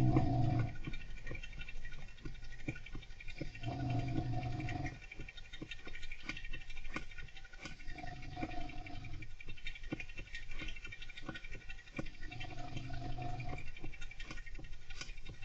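A golden hamster scratching and scrabbling, making many small clicks and scratches, over a person snoring in slow breaths about every four seconds.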